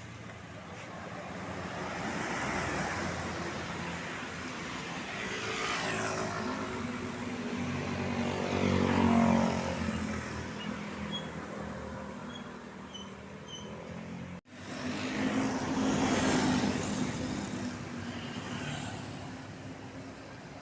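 Road traffic passing close by: a series of vehicles swelling and fading as each goes past, the loudest about nine seconds in and another about sixteen seconds in. The sound cuts out abruptly for a moment about fourteen seconds in.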